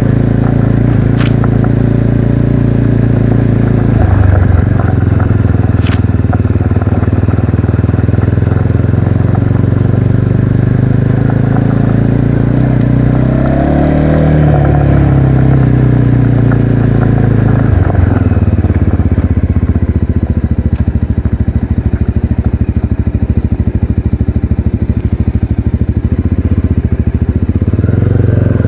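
Motorcycle engine running on the road, picked up by a cheap microphone on the rider's action camera. Its pitch shifts with throttle and gears, about four seconds in, in a brief rise and fall about halfway through, and again a few seconds later.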